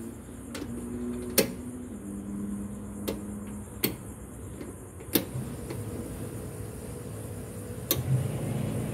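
Toggle switches on a boat's stainless-steel dashboard being flipped on one at a time: five sharp clicks spread over several seconds, over a steady low hum.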